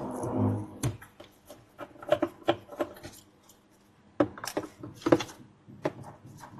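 Small hand tools clicking and scraping against the metal casing of a 12TB helium hard drive as it is opened: irregular light taps and rubs, busiest in the first second.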